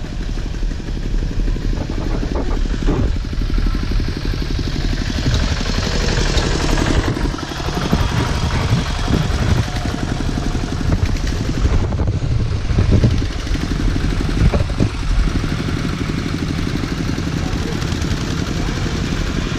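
Two-wheel walking tractor's single-cylinder diesel engine chugging steadily while pulling a loaded trailer over a rough dirt track, with occasional knocks and rattles from the trailer.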